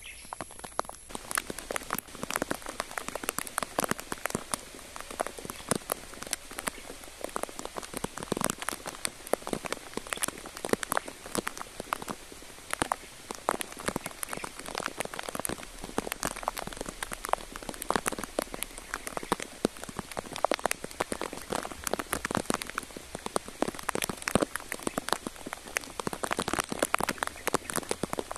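Light rain pattering: a steady scatter of irregular drops ticking close by.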